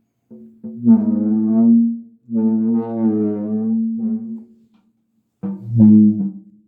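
Superball mallet dragged across a surface, giving low, horn-like groaning tones: three drawn strokes, the middle one the longest and a shorter one near the end.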